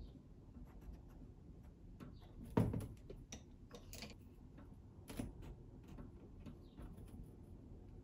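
Pastel pencil tapping and scratching in short dabs on sanded pastel paper, heard as faint scattered clicks. A louder knock about two and a half seconds in and a smaller one about five seconds in.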